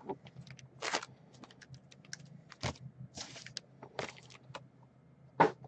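Trading card packs being handled on a table: scattered light taps and clicks with a few short rustles of the pack wrappers, and one louder knock near the end.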